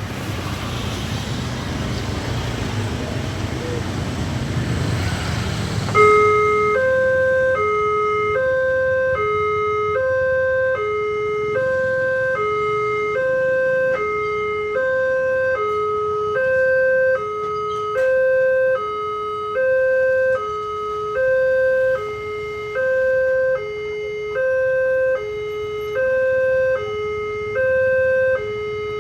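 Rumble of road traffic, then about six seconds in a Multech electronic level-crossing siren starts and keeps sounding a two-tone hi-lo warning, switching pitch about once a second. It is the warning that the crossing is closing for an approaching train.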